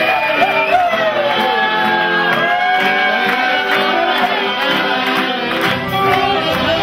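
Music with singing over a steady beat, with shouts from the crowd.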